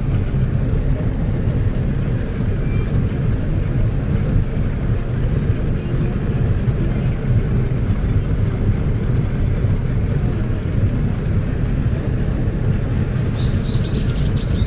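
Steady low rumble of a car driving along a road: engine and tyre noise. A brief cluster of high, squeaky chirps comes in near the end.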